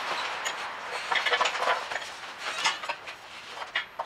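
Light metal clinks and knocks of steel parts being handled and set in place on a workshop hydraulic press bed, in scattered groups of short clicks.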